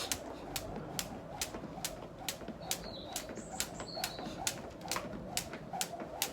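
Jump rope slapping the ground in a steady rhythm, a little over two turns a second, with a soft whir of the rope between slaps. A bird chirps briefly a couple of times near the middle.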